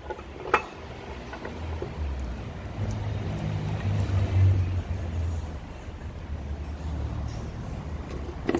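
A motor vehicle engine running with an uneven low rumble that swells and fades, with a sharp click about half a second in.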